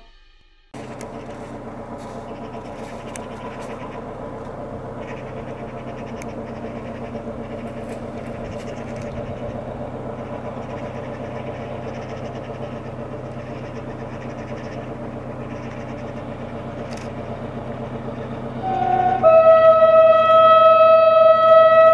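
SM42 diesel locomotive's engine running steadily under power as it pulls away with a train of cement hopper wagons. About nineteen seconds in, its horn gives one long blast, the Polish Rp1 'attention' signal.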